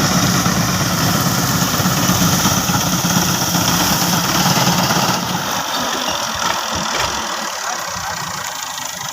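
A tractor engine runs steadily while it drives a reaper cutting wheat. Over the second half its low rumble fades away, leaving a fainter steady noise.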